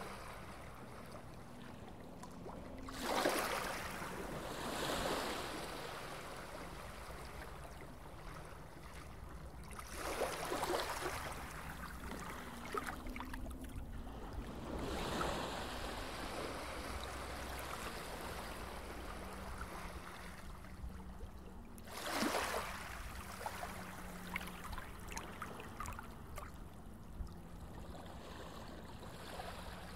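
Underwater-style water ambience: a steady low rumble with whooshing swells of water that rise and fade about five times.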